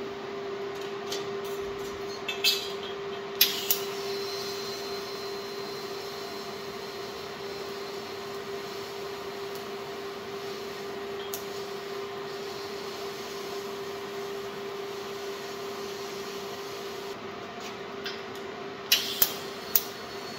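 TIG welding arc on a steel parasol-stand frame: struck with a few sharp clicks about three seconds in, it burns with an even hiss for some fourteen seconds over a steady hum. More sharp clicks come near the end as the arc is struck again.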